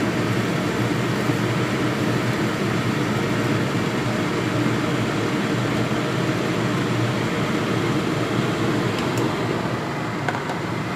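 Steady sizzling hiss of chicken cooking with rice wine in a hot pan on the stove, with a few faint clicks near the end.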